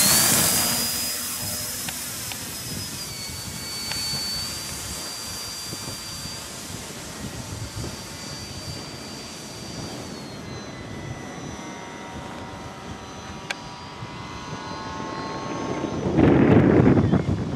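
The electric motor and propeller of a Multiplex FunCub RC plane whine as it spools up for takeoff. The pitch rises in the first moment, then holds high and steady as the plane climbs away, and fades after about ten seconds. Near the end comes a loud burst of wind noise on the microphone.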